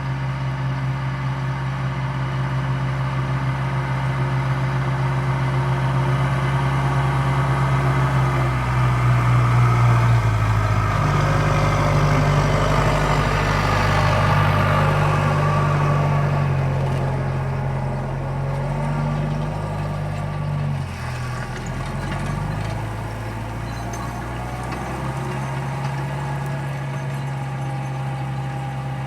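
Tractor engine running steadily. Its pitch rises and it gets louder about ten seconds in, then it drops back to its earlier speed around twenty-one seconds in.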